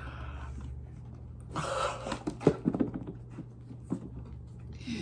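A boxed laptop being pulled out of a cardboard shipping carton and handled: cardboard scraping with a few sharp knocks about two and a half seconds in, and short rushing noise bursts about a second and a half in and near the end.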